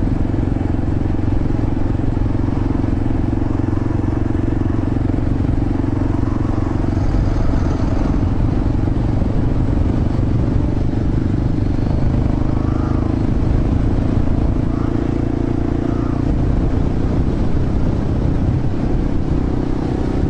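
Honda Grom's 125 cc single-cylinder engine running at a steady speed while riding, with no gear changes or revving.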